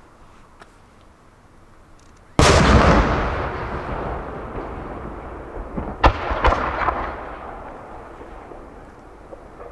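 A large aerial firework shell bursting with one sudden loud boom a little over two seconds in, its rumble rolling on and slowly fading. A few sharp cracks follow about three and a half seconds after the boom, then die away.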